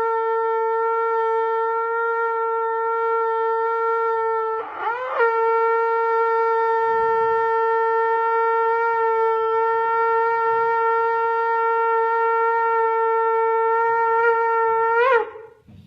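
Shofar blowing long, steady blasts. It breaks briefly with a pitch scoop about five seconds in, then holds one long note for about ten seconds, which bends upward and cuts off near the end.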